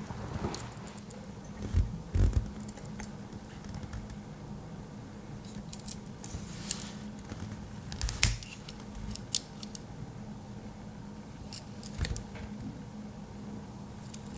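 Handling noise from a Victorinox Swiss Army knife: scattered small metallic clicks and light scrapes as its small blade and tools are moved, with a few louder knocks, over a faint steady low hum.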